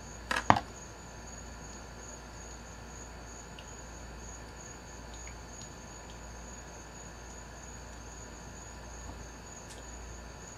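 A knife is set down on a plastic cooler lid with two sharp clacks about half a second in, over a steady high chirring of night insects.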